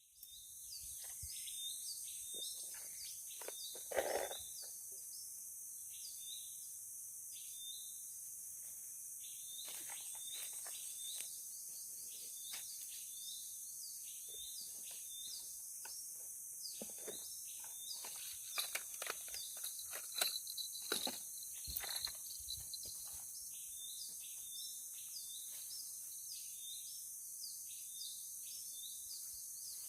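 Outdoor ambience: a steady high insect drone with many short, repeated chirps from birds or insects. Occasional knocks and rustles are heard, the loudest about four seconds in and around twenty seconds in.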